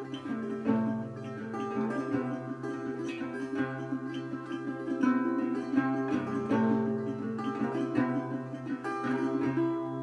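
Resonator guitar fingerpicked in a bluesy instrumental outro: picked melody notes over a steady low bass note, ending with a chord struck near the end and left ringing.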